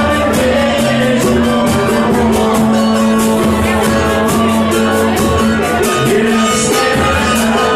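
Brazilian popular music (MPB) band playing, with percussion keeping a quick steady beat under sustained chords and singing.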